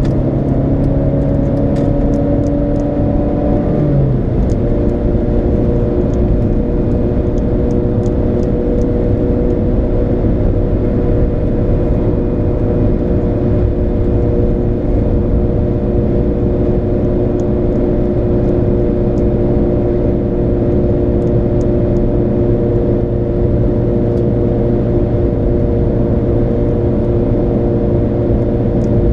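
Car engine and tyre noise at motorway speed, heard from inside the cabin: a steady drone whose engine note drops once, about four seconds in, and then holds steady.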